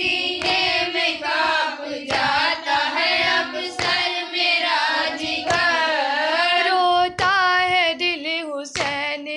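A woman's solo voice singing a noha, a Muharram lament, in long, wavering held notes. A sharp beat falls about every one and a half to two seconds.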